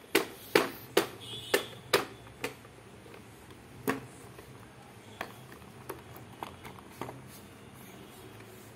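A baby's hand slapping and tapping the hard plastic toy tray of a baby walker: sharp taps about twice a second at first, then fewer and softer ones.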